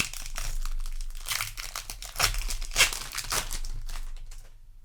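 A foil booster pack wrapper being torn open and crinkled in the hands: a dense run of crackling rustles that thins out near the end.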